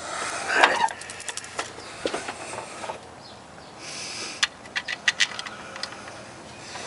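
A run of sharp metallic clicks and taps, as tools and parts are handled during engine work, with a brief noisy squeak in the first second.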